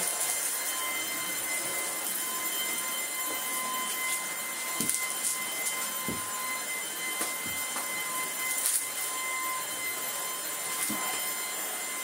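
Tineco A10 Hero cordless stick vacuum running on max while pushed back and forth over a rug: a steady motor whine over a rush of suction, with a few short clicks along the way.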